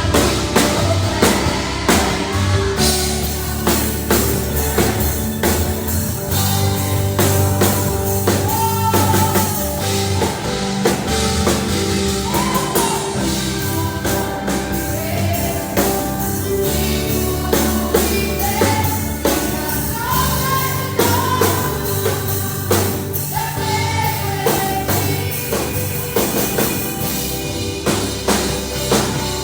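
Band music with a singing voice over a drum kit and a steady bass line, playing continuously.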